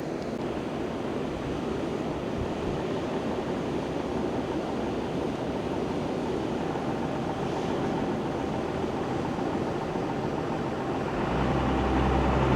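Rushing ocean surf with wind buffeting the microphone, a steady noisy wash. About eleven seconds in, a low, steady drone joins and the sound grows louder.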